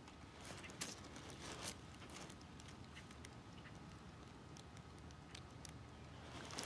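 Quiet outdoor ambience: faint scattered ticks and light rustles, with a thin, faint steady high tone underneath.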